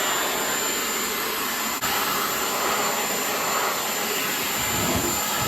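WnkimTech cordless stick vacuum running steadily with an even rushing whir as it cleans, with a momentary break about two seconds in.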